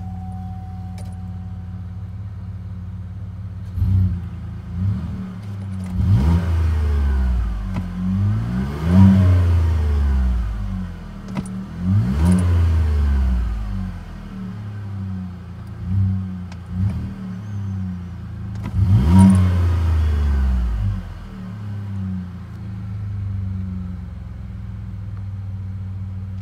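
Chevy Colorado ZR2 engine, fitted with a high-clearance exhaust and a Thrush turbo muffler, idling and then blipped about eight times, each rev rising and falling back to idle, before settling to a steady idle near the end. Heard from inside the cab.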